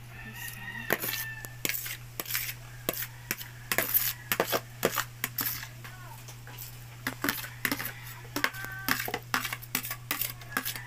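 A spoon clinking and scraping against metal and ceramic dishes as pet food is scooped into bowls: many sharp, irregular clinks.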